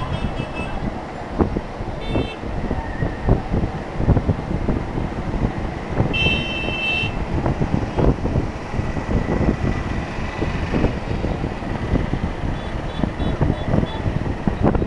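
Steady roar of surf and road traffic, with wind buffeting the microphone. Vehicle horns toot over it: briefly at the start, again about two seconds in, and a longer toot about six seconds in.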